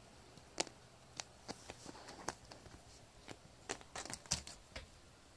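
A kitten batting a small plastic clothespin around on towels and tatami: irregular clicks and scuffs, with a quick cluster of them about four seconds in.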